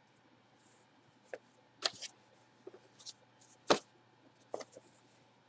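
Light handling noises: a few scattered sharp clicks and taps with faint rustling, the loudest just before the middle.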